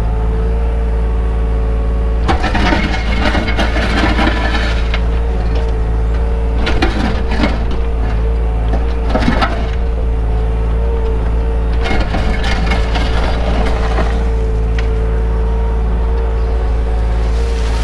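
Takeuchi TB235 mini excavator heard from inside the cab: the engine runs steadily with a constant whine over it. Several times, for a second or two at a time, louder harsher noise rises over it as the machine works, clearing mud from the track.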